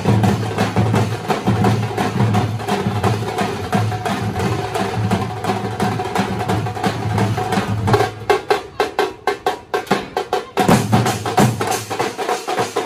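Percussion-driven music with fast, sharp drum strikes over a deep pulsing beat. About eight seconds in the deep part drops away for a couple of seconds, leaving only the sharp strikes, then comes back.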